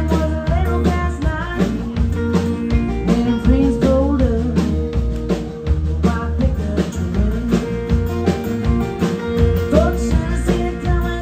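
Live country band playing: a woman singing lead over strummed acoustic guitar, electric guitar and a drum kit keeping a steady beat.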